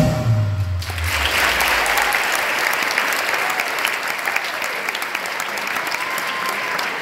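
Dance recital music stops about a second in, its low end dying away, and the audience applauds through the rest.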